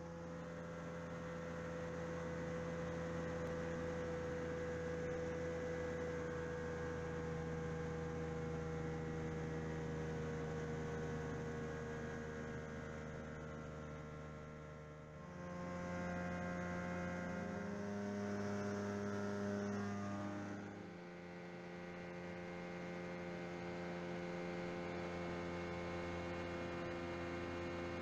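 Light aircraft's piston engine and propeller droning steadily, heard from inside the cabin. The pitch rises for about five seconds midway, then drops back to the earlier steady drone.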